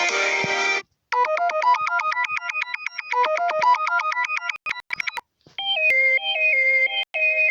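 Mobile phone ringtones played back to back. A fuller musical ringtone cuts off under a second in, then a fast electronic arpeggio melody plays for about three and a half seconds. After a short gap a second, slower synth melody starts.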